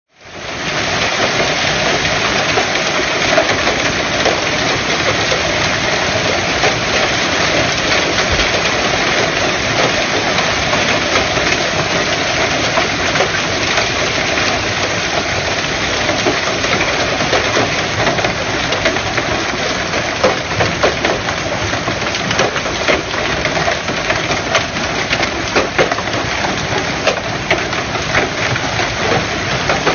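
Hail falling: a dense, steady clatter of hailstones striking, with sharper single hits standing out more in the last third.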